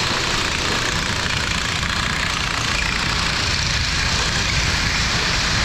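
An engine running steadily, with an even hiss over a low rumble.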